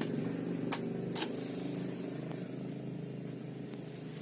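A motor vehicle engine running steadily and slowly fading, with a few sharp clicks over it.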